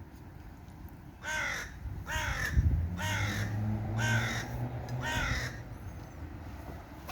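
A crow cawing five times in a steady series, about one caw a second.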